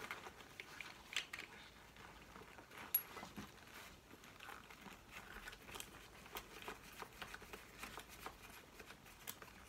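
Faint handling sounds of a rebreather's rubber breathing hoses and plastic fittings being pushed and twisted into place: soft rustling with a few scattered light clicks, the sharpest about three seconds in.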